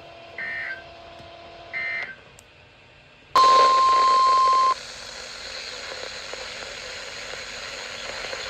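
Emergency Alert System SAME data tones: two short bursts of warbling digital screech, the end-of-message code closing the previous alert. About a second later a loud, steady single-pitched alert tone sounds for just over a second, and then a hiss of broadcast static carries on.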